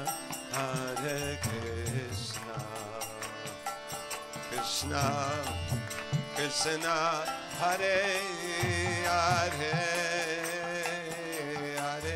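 Kirtan music: a mantra sung with a wavering, vibrato-laden voice over hand-drum strokes and cymbal splashes.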